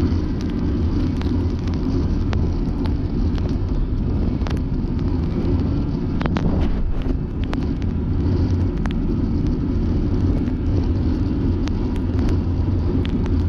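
Can-Am Maverick Sport X mr side-by-side's V-twin engine running steadily while under way, with scattered sharp clicks and knocks over it.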